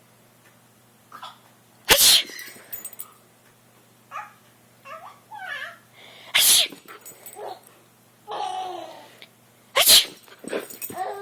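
A person making three loud sneezes on purpose, about four seconds apart. Between them a dog, scared by the sneezes, answers with whining, yelping cries that rise and fall in pitch.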